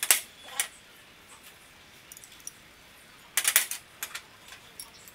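Steel combination spanners and hex nuts clinking as they are handled and set down on a work surface: two sharp clinks at the start, then a quick cluster of clinks about three and a half seconds in.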